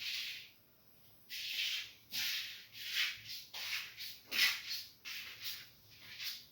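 A run of short scratchy noises, about a dozen at irregular spacing.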